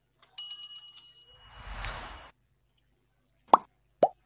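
Subscribe-button animation sound effects: a bell ding that rings for about a second, then a short whoosh, then two sharp pops about half a second apart near the end.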